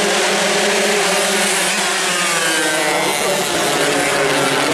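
Racing 120 cc two-stroke Suzuki Sport (xipo) motorcycles running at high revs, a loud steady engine drone whose pitch wavers and shifts as the bikes go round.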